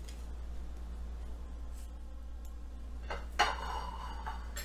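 Quiet kitchen with a steady low hum. A little over three seconds in, and again at the end, there is a short clatter of a table knife against ceramic dinner plates.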